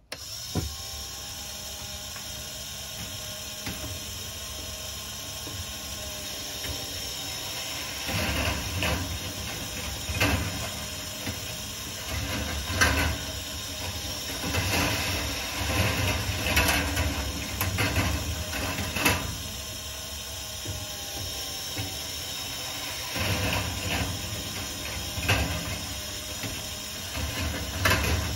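Copper-wire rolling ball sculpture running: half-inch steel balls rolling and rattling along the wire tracks with sharp clicks, over a steady mechanical running sound. The rattling comes in louder stretches, from about a third of the way in and again near the end.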